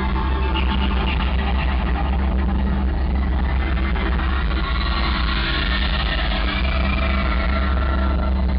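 Loud live concert music over a PA system, with a heavy, steady bass underneath.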